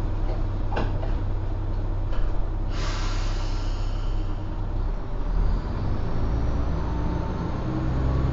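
Kanto Railway KiHa 5000 diesel railcar's engine idling at a standstill, with a loud hiss of compressed air about three seconds in that fades over a second or so. From about five seconds the engine note changes and rises as the railcar powers up and starts to pull away.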